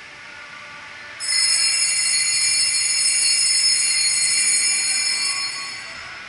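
Altar bell ringing: a bright cluster of high ringing tones starts suddenly about a second in, holds for some four seconds and fades near the end.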